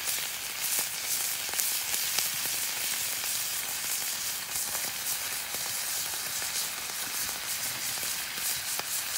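Bacon sizzling in a large cast iron skillet over a campfire: a steady frying hiss with scattered small pops.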